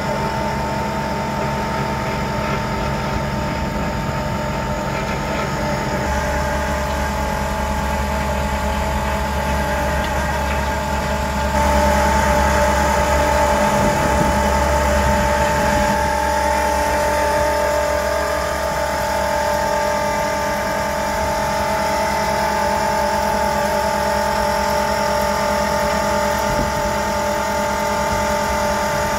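Excavator engine and hydraulic drive running steadily while an excavator-mounted auger drills into sandy soil, with a constant whine over the engine drone. It gets louder about twelve seconds in.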